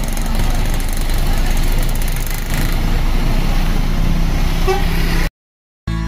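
A large tri-axle tour bus running close by, its diesel engine loud and steady, with a horn sounding near the end. The sound cuts off abruptly about five seconds in.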